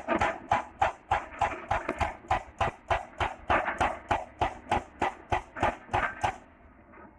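Excavator-mounted hydraulic breaker hammering rock: a steady run of sharp blows, about four a second, that stops about six seconds in.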